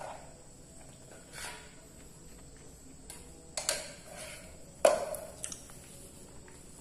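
A plastic rice paddle clinking and knocking against the metal inner pot of a rice cooker as cooked rice is scooped out, several sharp knocks with the loudest about five seconds in.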